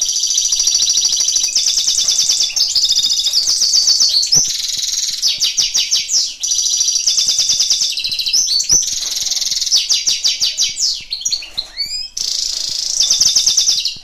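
European goldfinch singing: a long, fast song of rapid high trills and twittering phrases, broken only by a few brief pauses.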